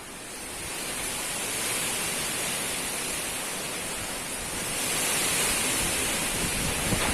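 Strong wind blowing in gusts, a steady rush that swells about a second in and grows louder again around five seconds. Near the end, low buffeting of the wind on the microphone joins in.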